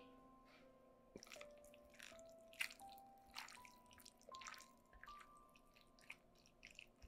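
Faint wet drips, squelches and clicks of a thick marinade sauce poured over sliced zucchini and onion and the salad tossed with tongs, over soft background music with held notes.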